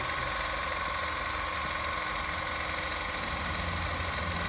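Battery-powered electric car jack's motor running steadily with a faint whine as it lifts the car.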